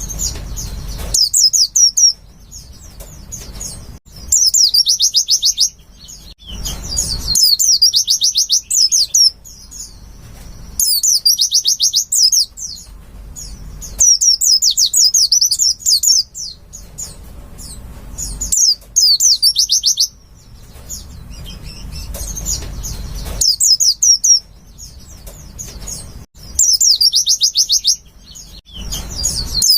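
Pleci (white-eye) singing: fast, high, chattering trilled phrases of about two seconds each, repeated roughly every three seconds, with a low rumble in the pauses between phrases.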